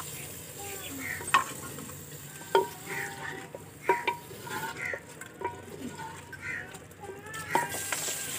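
Liver sizzling as it goes into hot ghee in a clay pot and is stirred with a wooden spoon, with several sharp knocks of the spoon against the pot.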